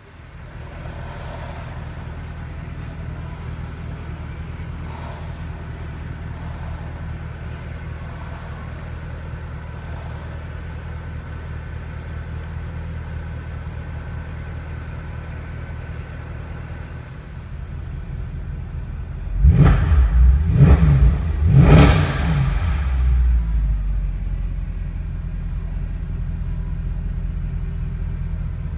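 The 6.2-litre V8 of a 2012 Mercedes C63 AMG Black Series idling steadily while parked, heard from inside the car. About twenty seconds in, three quick blips of the throttle rev it sharply, the last the loudest, before it settles back to idle.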